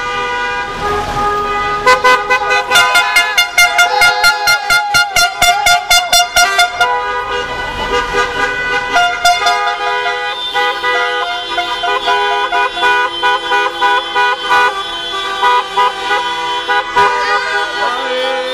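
Many car horns honking at once, overlapping steady blasts from a procession of cars. About two seconds in, one horn starts tooting rapidly, about six times a second, for roughly five seconds.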